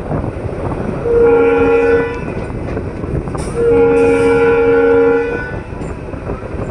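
Locomotive horn of a WAP-4 electric locomotive fitted with an EMD-style horn, sounded twice: a short blast about a second in and a longer one about three and a half seconds in. Under it, the rumble and clatter of the moving train.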